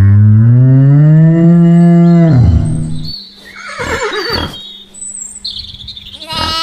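A cow mooing: one long, loud moo that rises in pitch and then holds for about two and a half seconds. About a second later a horse whinnies with a wavering pitch, and near the end a sheep bleats briefly.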